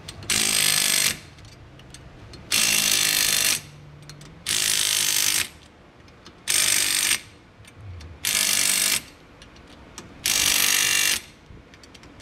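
Impact wrench hammering in six short bursts, each under a second long and about two seconds apart, with another starting at the very end.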